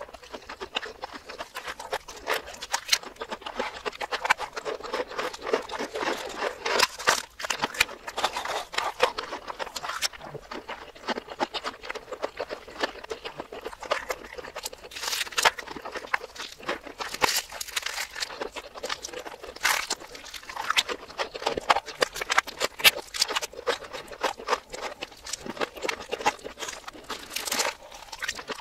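Close-miked chewing and crunching of fried chicken with cheese sauce, played in reverse: a dense, irregular run of wet mouth clicks and crunches.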